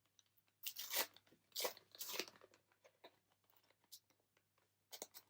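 Foil trading-card booster pack being torn open: two short ripping, crinkling tears about one and two seconds in, then a few light clicks of handling and a brief rustle near the end.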